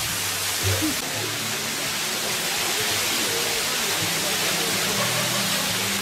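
A steady rushing hiss, even across low and high pitches, with faint voices and a faint low music line underneath.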